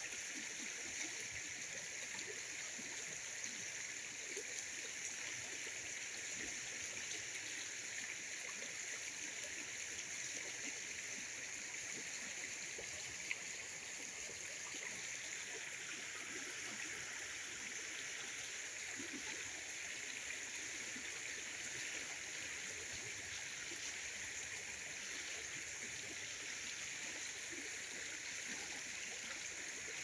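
Shallow muddy floodwater running over the ground between trees: a steady rushing hiss of moving water with no change throughout.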